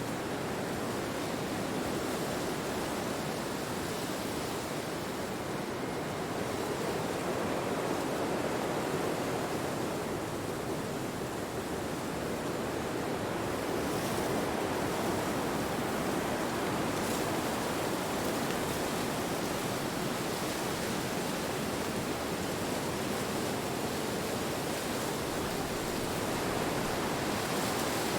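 Steady rushing wind, swelling and easing slowly every several seconds.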